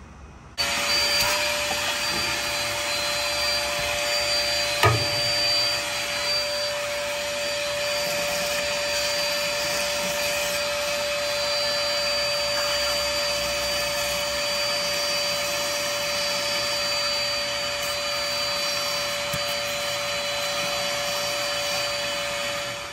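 Shop vacuum running, sucking debris out of the engine's open intake ports through a narrow tube on its hose. It switches on abruptly about half a second in, runs with a steady whine, and winds down near the end; a single knock sounds about five seconds in.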